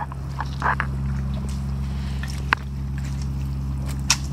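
Steady low drone of an engine running, with a few sharp clicks on top.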